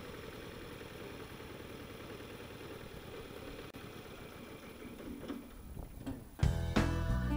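Westwood diesel ride-on mower's engine running steadily out of sight, slowly growing fainter. Guitar music starts suddenly near the end.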